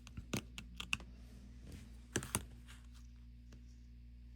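Light, sharp clicks and taps of small watch parts and tools being handled: a quick cluster in the first second and two more a little after two seconds in.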